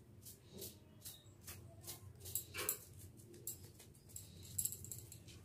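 Faint, irregular light taps and clicks, a few a second, from spice containers being handled on a kitchen counter.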